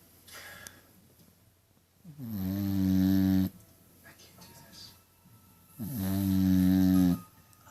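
Snoring: two long, pitched snores about three and a half seconds apart, each starting and stopping abruptly.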